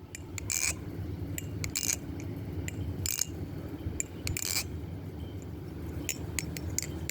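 Polaris balisong (butterfly knife) with 7075 aluminium handles being flipped: sharp metallic clicks and clacks at irregular intervals as the handles swing round the blade and close, a few louder than the rest.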